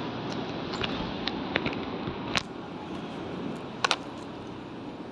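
Steady background noise of a large train-station hall, with a few scattered sharp clicks or taps at irregular intervals.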